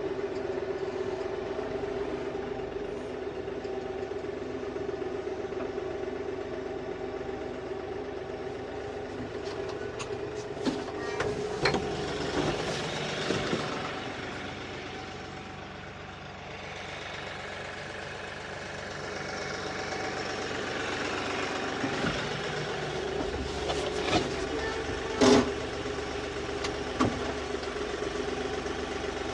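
Kioti DK6010 compact tractor's diesel engine running steadily as its loader and pallet forks push and roll a large oak log. The engine eases off briefly near the middle, and there are scattered clanks and knocks, one much louder near the end, as the forks work against the log.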